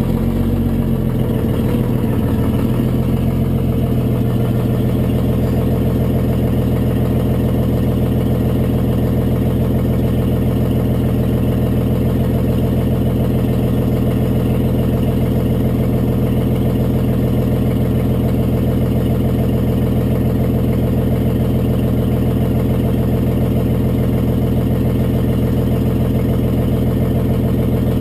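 Detroit Diesel 6-71 two-stroke diesel of a 1955 GMC TDH-4512 bus idling steadily, running on a short 4-inch exhaust elbow set in the manifold instead of a full exhaust system. The sound is uneven for the first few seconds, then settles.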